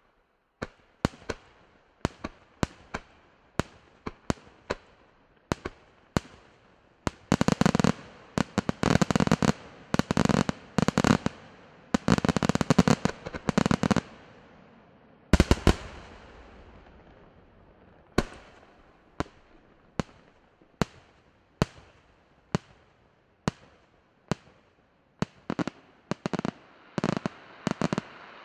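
Fireworks display: sharp single bangs about two a second, then dense runs of rapid-fire bangs for several seconds, and one loudest bang with a long rolling echo about halfway, before single bangs pick up again into another rapid run near the end.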